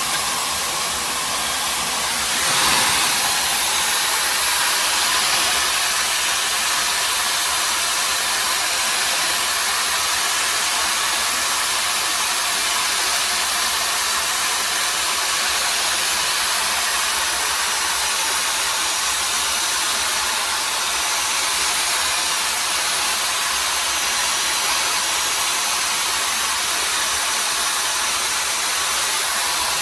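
Hair dryer brush running steadily: a continuous rush of blown air with no change in speed, briefly a little louder about two and a half seconds in.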